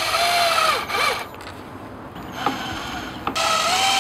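Power drill driving self-tapping sheet metal screws into a screen frame: the motor whines through a run that slows and stops about a second in, and a second run starts near the end.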